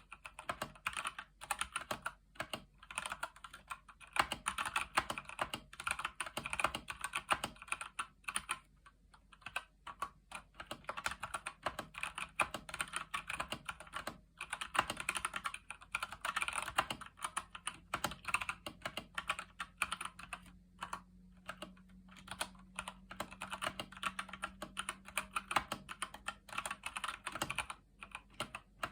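Steady typing on a Keychron C1 mechanical keyboard with Gateron Brown switches: a fast run of key clicks and clacks with a few short pauses, and a faint low hum under it.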